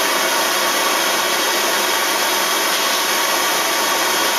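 Brass Primus paraffin pressure stove with a roarer burner, burning at full pressure: a steady, even rushing noise from the vaporised paraffin jet and flame. The stove is fully preheated and running properly.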